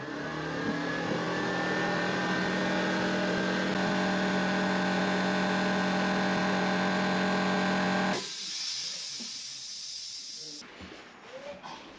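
A machine running with a steady hum over a hiss: it builds up over the first couple of seconds, holds steady, and stops suddenly about eight seconds in, leaving only faint noise and light clatter.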